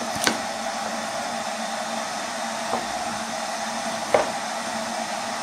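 Wooden spatula stirring chopped salad in an enamel pot, with three soft knocks against the pot, near the start, in the middle and about four seconds in, over a steady fan-like hum.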